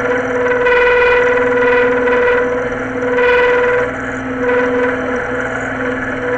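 Micro mill set up as a makeshift lathe, running with a lathe tool on the work: a steady, high-pitched whine that swells and eases several times.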